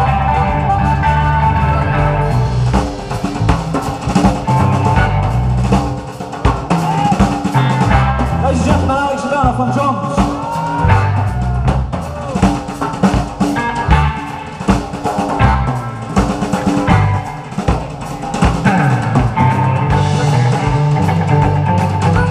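Live electric blues band playing an instrumental boogie passage: electric guitar, harmonica, bass guitar and drum kit, with the drums to the fore in the middle stretch as the bass line thins out.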